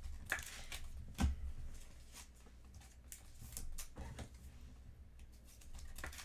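Baseball trading cards being handled close to the microphone: scattered light clicks and rustles of card stock, with a soft thump about a second in.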